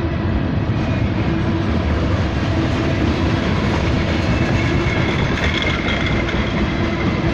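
Freight train cars rolling past at close range: a steady, loud rumble of steel wheels on rail with some clickety-clack.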